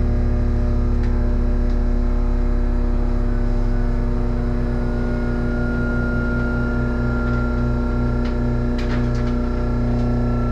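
Steady low hum and drone of a stopped streetcar's onboard machinery, heard from inside the car, with several steady tones. About halfway through a low pulsing and a thin high tone join in, and a few faint clicks come near the end.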